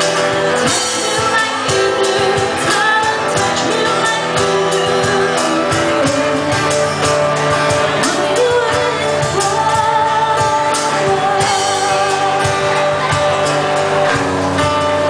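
A song sung with band accompaniment, a singer over steady instruments and a beat.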